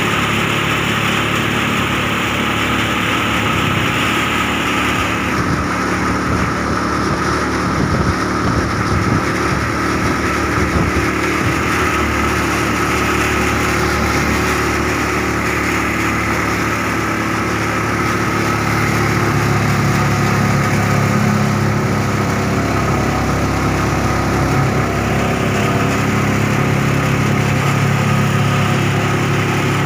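Tricycle's motorcycle engine running steadily while riding along a road, heard from inside the sidecar, with a constant hum of engine and road noise.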